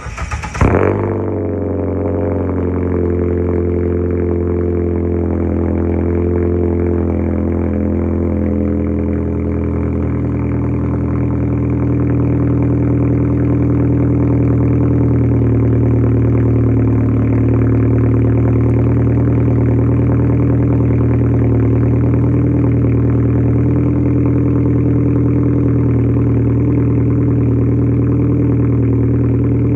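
Car engine of a 2010 Ford Fusion starting about half a second in with a brief flare, then idling steadily, heard from right behind its quad exhaust tips.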